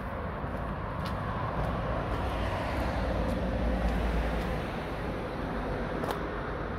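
A car driving past, its engine rumble and tyre noise swelling to a peak about halfway through and then fading.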